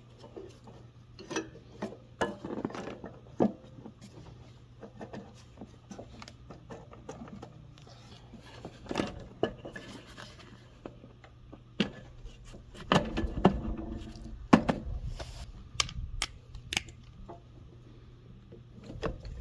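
Scattered clicks, scrapes and knocks of small mower engine parts being handled and fitted by hand, with a cluster of louder knocks about two-thirds of the way through.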